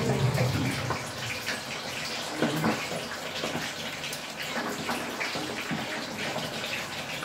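Cornstarch-breaded chicken drumsticks sizzling in hot oil in a wok, a steady hiss full of small crackles.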